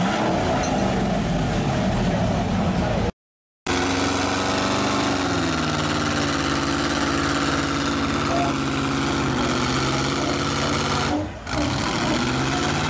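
Heavy truck engines running steadily under load as a military deuce-and-a-half truck and a lifted pickup pull against each other in a tug-of-war, with crowd noise. The sound cuts out completely for about half a second around three seconds in.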